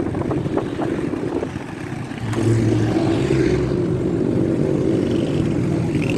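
A vehicle engine running while under way, with a steady drone that picks up and gets louder about two seconds in, as if accelerating.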